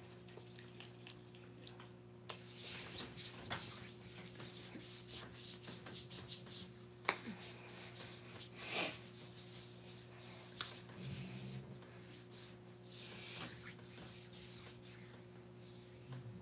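Hands rubbing body butter into skin: a run of soft swishing strokes, with a sharp click about seven seconds in. A faint steady hum sits under it.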